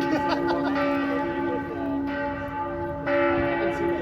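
The Karlskirche's church bells ringing in peal, with several bells sounding together. Fresh strokes come roughly once a second over a continuous deep hum that rings on between them.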